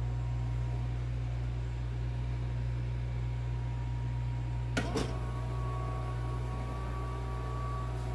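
A Brigadeirinha electric stirring pot (panela mexedora) with a steady low hum; about five seconds in, two short clicks as its control knob is turned, then a steady whine as the stirring motor starts running.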